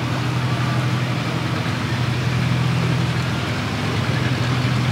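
Boat engine running steadily, a continuous low hum.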